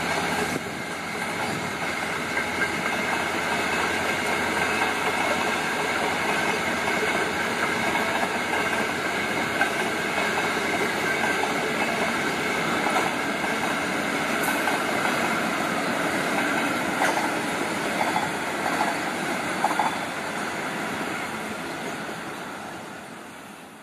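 Long-distance passenger train carriages rolling past on the track, a steady rumble of wheels on rail with a few clicks, fading out near the end.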